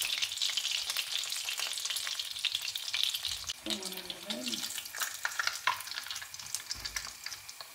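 Battered salt cod sizzling and crackling in hot oil in a frying pan: a steady high hiss full of small pops.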